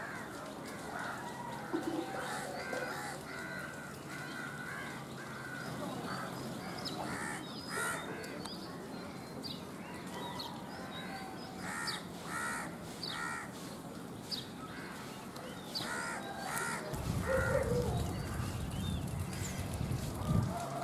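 Birds calling in short, repeated calls in quick runs, with fainter high chirps among them. A low rumble comes in a few seconds before the end.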